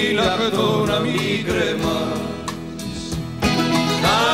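Background music from a Greek song: a pitched melody line over a steady beat.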